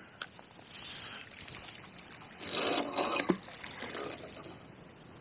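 Rustling and scraping handling noise as a fishing rod and tackle are moved on a grassy bank, loudest in a stretch of about a second around the middle, with a few faint clicks at the start.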